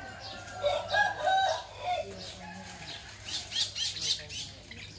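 A rooster crowing once, the crow lasting about a second and a half, followed about three seconds in by a cluster of quick, high chirps.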